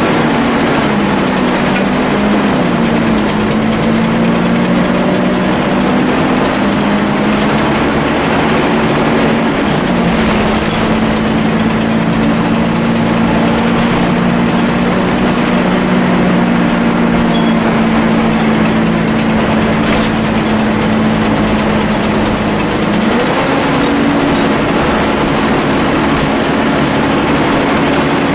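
Volvo B10BLE single-deck bus's rear-mounted six-cylinder diesel running steadily under way, with a whine that drops in pitch a few seconds in and again near ten seconds, then rises near the end, as engine speed changes.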